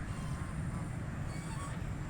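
White Pekin ducks giving a few faint, short quacks over a steady low rumble.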